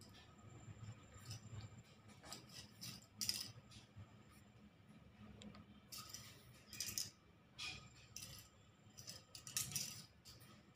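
Ballpoint pen scratching across paper in short, irregular strokes, faint, over a low steady hum.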